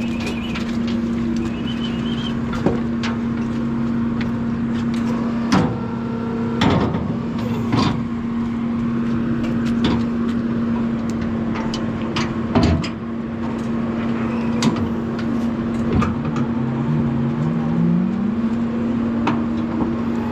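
Steady mechanical hum of a hoof-trimming chute's hydraulic power unit, running on one unchanging tone, with sharp metal clanks and knocks several times and a rising pitch glide near the end.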